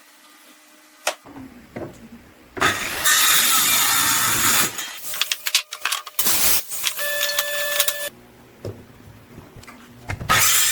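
Power tool working wood in loud bursts: it starts a few seconds in, stops, briefly runs again with a steady whine, and starts up once more near the end.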